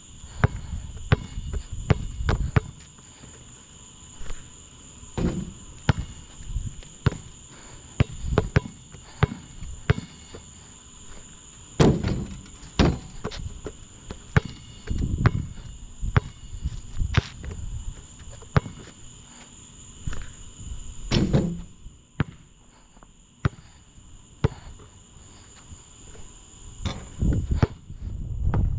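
A basketball bouncing in an irregular series of sharp, loud bounces, some with a heavier thud. A steady high chirring of crickets runs underneath.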